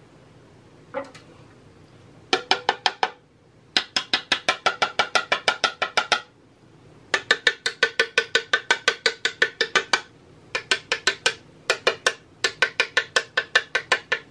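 Rapid runs of sharp taps, about six a second, from a metal scraper knocking against an upturned clear plastic chocolate mould. The tapping drives the excess tempered dark chocolate out so that only thin shells are left in the cavities. The runs stop and start several times.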